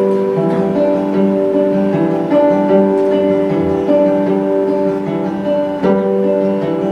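Acoustic guitar intro: single picked notes ring and overlap, and a full chord is strummed about six seconds in.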